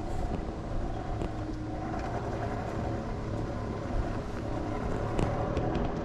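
Electric mobility scooter running along a path: a steady motor hum over a low rumble, with a few small clicks about five seconds in.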